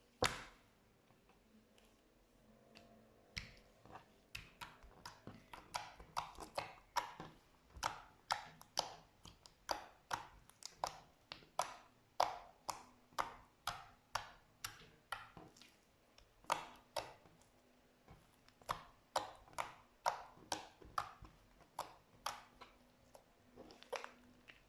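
Slime being kneaded and pressed by hand, making a run of sharp, sticky clicks and pops, about two a second. It opens with one louder snap and has a short lull about two-thirds of the way through.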